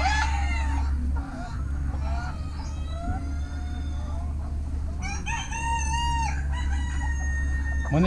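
Bantam roosters crowing, with one longer, steadier crow about five seconds in, and chickens clucking among the pens.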